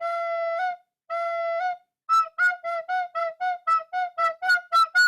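Intro music: a flute-like wind instrument plays two held notes, each stepping up at the end. About two seconds in it breaks into a quick run of short notes at about four a second.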